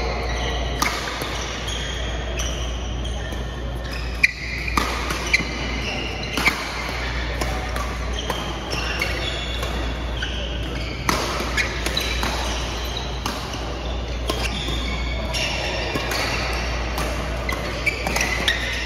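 Badminton rackets striking a shuttlecock in a doubles rally: sharp, irregularly spaced cracks, several in quick succession. Court shoes squeak against the court mat, over the din of a busy hall.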